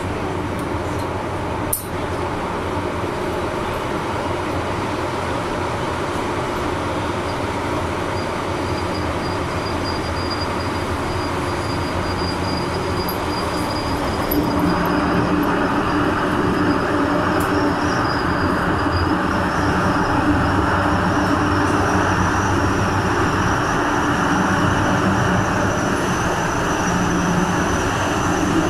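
MTR M-Train electric multiple unit running, heard from inside the passenger car: a steady rumble of wheels on rail with a faint whine that slowly rises in pitch. The running noise gets louder about halfway through.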